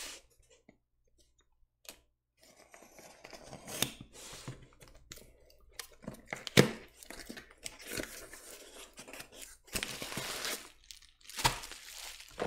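A utility knife slitting the packing tape on a small cardboard box, with scraping and several sharp clicks. Then the cardboard is pulled open and a bubble-wrapped package rustles as it comes out near the end.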